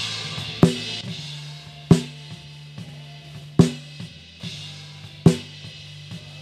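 Snare drum heard through its close mic in a live worship-band recording: four hard snare hits spaced about a second and a half to two seconds apart. Between the hits, spill from the rest of the band keeps ringing underneath. That spill is the unwanted noise the gate is meant to cut.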